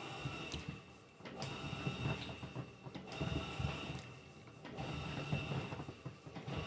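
Electrolux LTC15 top-loading washing machine agitating: the motor and agitator turn back and forth in strokes about every one and a half seconds, with a steady high whine and mechanical clicking.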